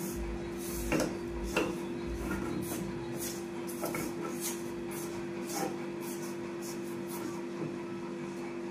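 Silicone spatula scraping and stirring a roasted gram flour and sugar mixture in a steel kadai, repeated scraping strokes as the mix is worked to break up lumps. A steady hum runs underneath.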